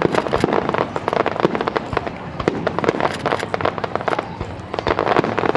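Aerial fireworks shells bursting in a rapid, dense barrage, many bangs a second overlapping one another.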